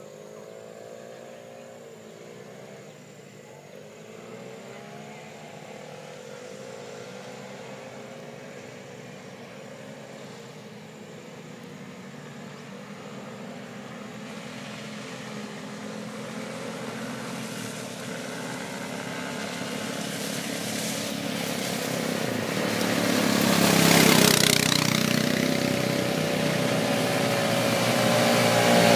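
Several quad bike engines approaching, faint at first and growing steadily louder as they near, their pitch rising and falling as the riders work the throttle; loudest about three-quarters of the way through and again at the end.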